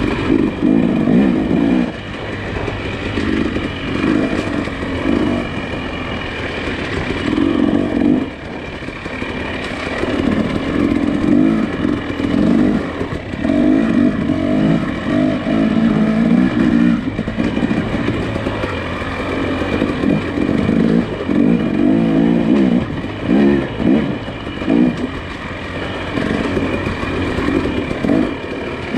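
Nissan Pathfinder SUV driving a rough off-road trail: engine running with uneven surges in level every second or two, with clatter and knocks over the bumps.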